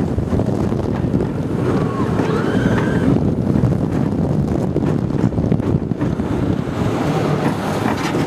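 Heavy wind rushing over the microphone and the rumble of the Olympia Looping roller coaster train running at speed on its steel track through the loops, with a few brief knocks from the cars.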